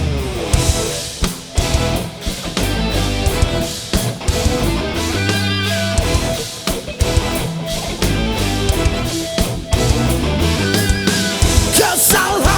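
Live rock band playing an instrumental passage between sung lines: drum kit, bass and electric guitar, with a lead line that wavers in pitch twice.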